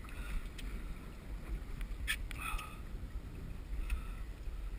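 Sea water lapping against a kayak hull, over a steady low rumble of wind on the microphone, with a few short clicks or splashes, the sharpest about two seconds in.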